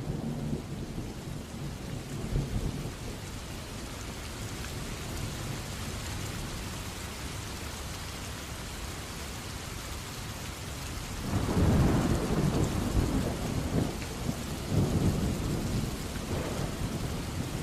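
Steady rain falling on a wet surface, an even hiss. Louder low rumbling swells in about two-thirds of the way through and again near the end.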